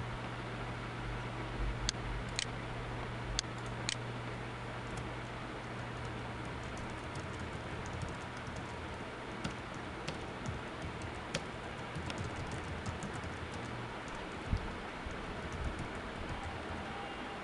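Typing on a computer keyboard: scattered key clicks, sparse at first and coming more often in the second half, over a steady low hum.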